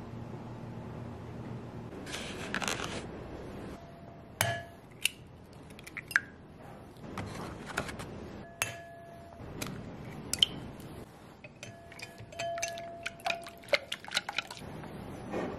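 Kitchen prep sounds at a ceramic mixing bowl: a brief papery rustle, then a series of sharp clinks and taps against the bowl, some leaving a short ringing tone. Near the end a wire whisk beats eggs, clicking rapidly against the bowl.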